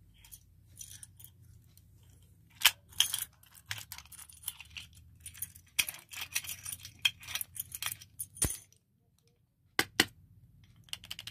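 A bunch of keys jangling and a metal padlock clinking as they are handled and set down on a concrete floor: a run of irregular sharp metallic clicks and clinks, the loudest about three seconds in.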